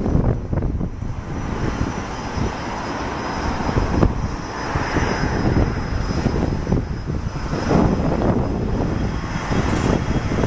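Airbus A320-212's twin CFM56 turbofan engines at takeoff thrust during the takeoff roll: a continuous jet rumble whose loudness rises and falls unevenly.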